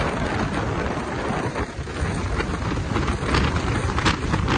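Hurricane wind buffeting a phone's microphone: a loud, gusting rumble with a brief lull a little under two seconds in.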